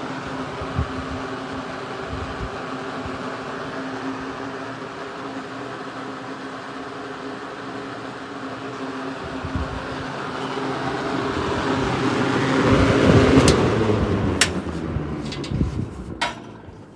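General Electric box fan running on high: a steady motor hum with air rushing off the blades, swelling about ten seconds in. Several sharp clicks follow near the end as the fan's sound falls away.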